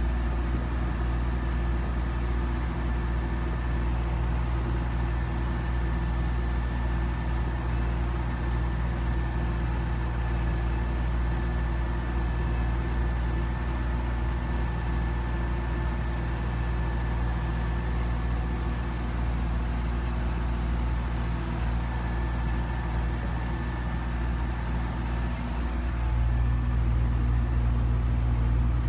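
Belarus MTZ 820 tractor's four-cylinder diesel engine running steadily under load while pulling a disc plough through a field, heard from the driver's seat, with a faint steady high whine over it. The sound turns a little louder and heavier near the end.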